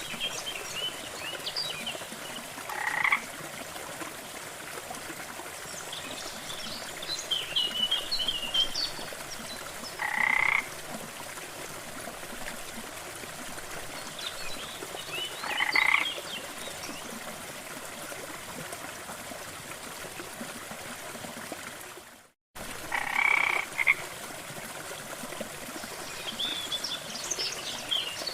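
Steady rushing of falling water, with birds chirping in short bursts and a frog croaking about every five to seven seconds. The sound drops out completely for a moment a little past the middle.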